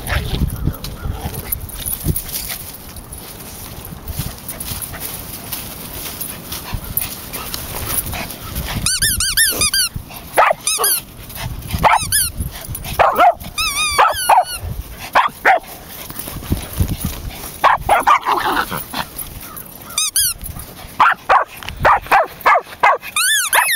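A dog barking in short, high-pitched yaps that come in several bouts, starting about a third of the way in after a stretch of low rumble.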